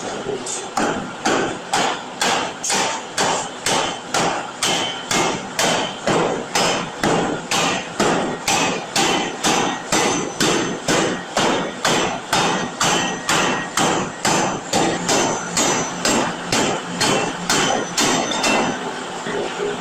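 Large power forging hammer pounding a red-hot steel workpiece on the anvil in a steady rhythm of about two heavy blows a second, each with a short metallic ring.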